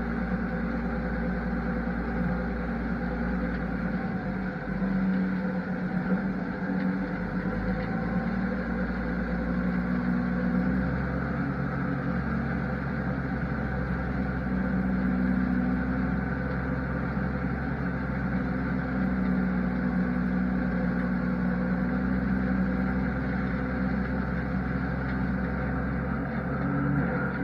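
Engine of a large farm machine running steadily, a continuous low hum that shifts slightly in pitch about eleven seconds in.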